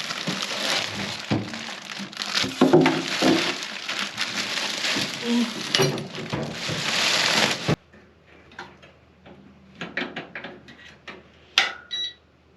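Packaging being torn and crinkled while unboxing an electric fireplace: plastic wrap and packing material crackling and rustling, which cuts off suddenly a little past halfway. Then a few light clicks and, near the end, a short electronic beep from the fireplace.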